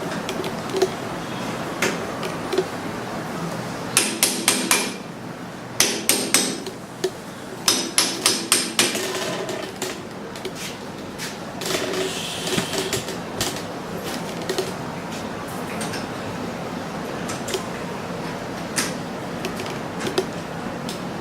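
Hammer blows on metal in three quick bursts of four or five strikes each, near the middle of the stretch, with scattered lighter knocks and clicks before and after.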